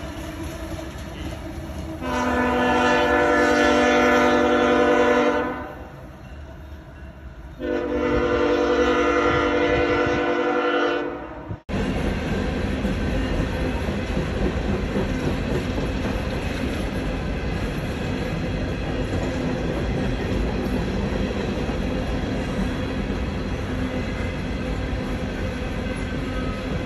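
Freight train air horn sounding two long blasts, each a chord of several tones, over the rumble of CSX diesel locomotives passing close by. About twelve seconds in it gives way abruptly to the steady rumble and clatter of freight cars rolling past.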